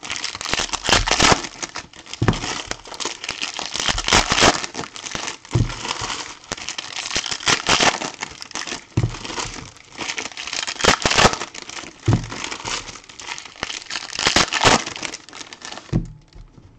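Foil trading-card pack wrappers being torn open and crumpled by hand in repeated crinkling bursts, with a few dull knocks among them. It quietens near the end.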